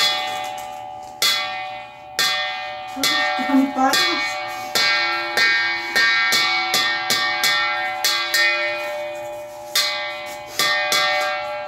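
Background music of chiming, bell-like notes, struck one after another at an uneven pace and left ringing.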